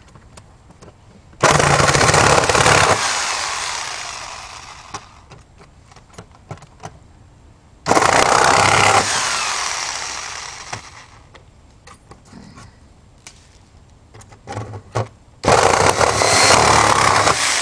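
Reciprocating saw cutting through the thin metal plate of a small floor safe in three short bursts, each starting suddenly, running about a second and a half, then winding down with a falling pitch. Light clicks and knocks sound between the bursts.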